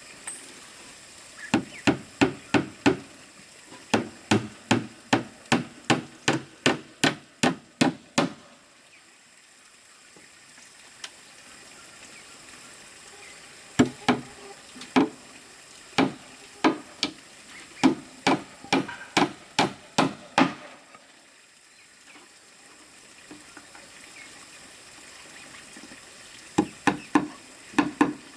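Hammer driving nails into wood: three runs of sharp, even blows, about two to three a second, with pauses between the runs.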